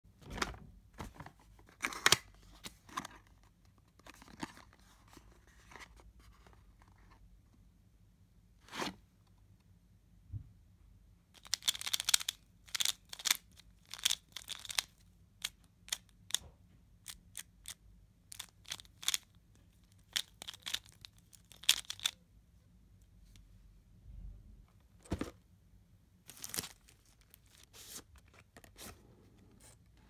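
Paper and packaging being handled and torn open: irregular bursts of rustling, tearing and sharp crisp clicks, with quiet gaps between.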